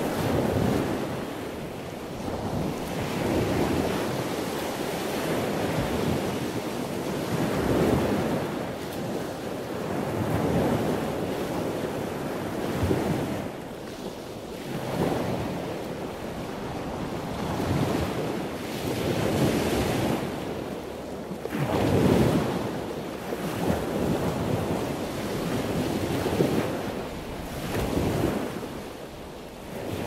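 Ocean surf with waves breaking and washing in one after another, the sound swelling and falling back every two to three seconds. Wind runs underneath.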